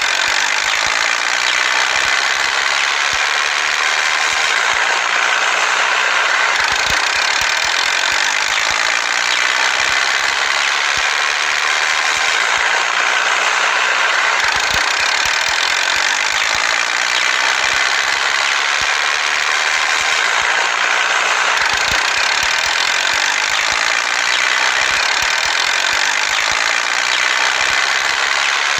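A small motor running steadily with a continuous high buzzing whir that holds the same pitch throughout.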